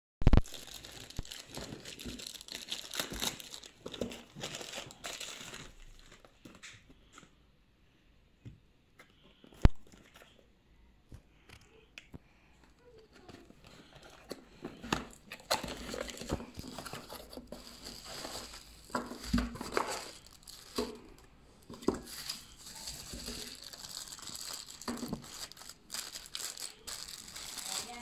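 Packaging being torn open and handled: a plastic mailer bag crinkling and tearing, then a cardboard box and plastic wrapping rustling, in irregular bursts with scattered sharp clicks, the loudest about ten seconds in.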